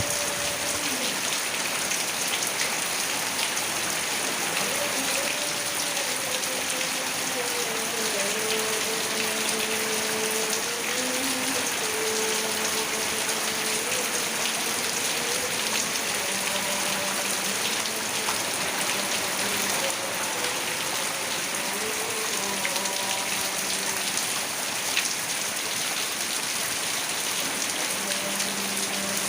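Heavy rain pouring steadily, an even hiss of drops, with a faint distant voice in long, wavering held tones beneath it.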